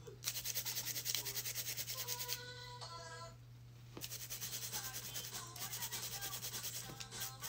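Quick back-and-forth scrubbing of fingernails, about seven strokes a second, as the etched nails are wiped clean of filing dust with alcohol; the scrubbing stops for about a second and a half in the middle, then resumes.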